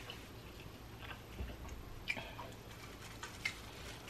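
Small plastic food containers being handled: a few faint, scattered clicks and light taps.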